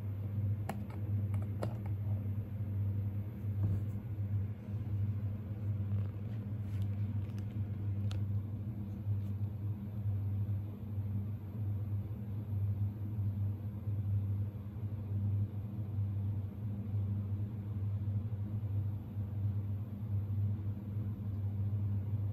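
Steady low electrical hum, with a few light clicks in the first two seconds as a hand works the switch on a cardboard box.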